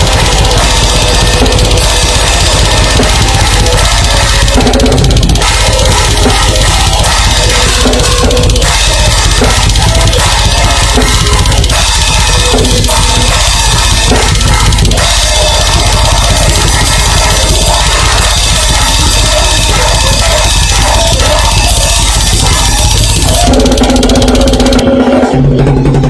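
Rock band playing loud and heavy, driven by a drum kit with a strong bass drum.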